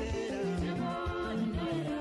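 Background music with a steady beat and a bass line under a melody.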